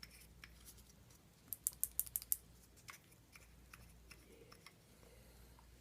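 A quick run of about seven sharp clicks, followed by a few scattered fainter ones.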